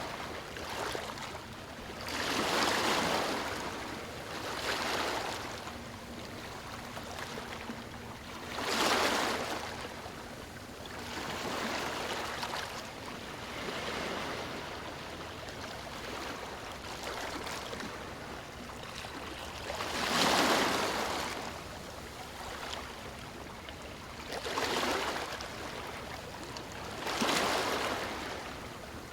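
Waves breaking onto a stony shore: a steady wash of water noise with surges that swell and fade every few seconds, the strongest few standing out well above the rest.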